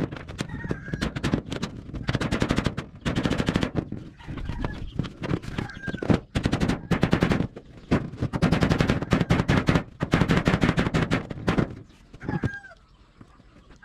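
Repeated bursts of rapid, clattering impacts, each lasting about a second, from fastening zinc roofing sheets. Chickens cluck between the bursts.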